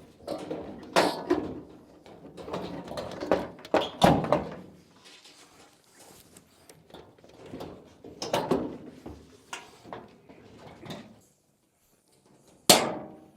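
Irregular knocks, thunks and scrapes of the dryer's panels being handled and fitted back together, with a heavy thunk about four seconds in and a sharp knock near the end.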